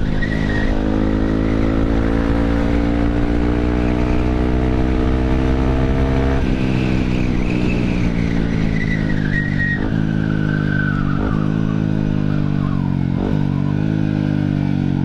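Yamaha WR155's single-cylinder engine through a GP7 Max 4.1 aftermarket exhaust, pulling hard: its pitch climbs for about six seconds, drops suddenly at an upshift, then runs on with three brief dips near the end. Its note is full and round.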